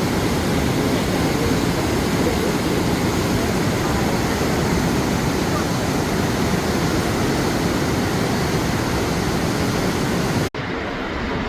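Steady roar of Niagara Falls' falling water. About a second before the end it cuts off abruptly into a duller rush with less hiss.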